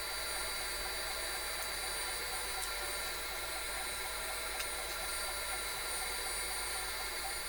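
Electric shop machine running steadily: an even rushing noise with a fixed whine.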